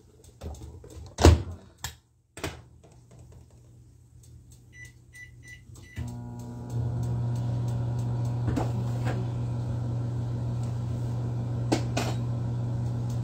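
Microwave oven being started: a knock as the door is shut, four short keypad beeps about five seconds in, then the oven running with a steady low hum.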